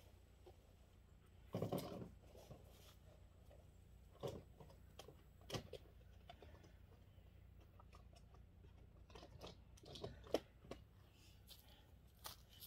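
Near silence, broken by a handful of faint clicks and rustles of handling close to the microphone, the loudest a short rustle about two seconds in.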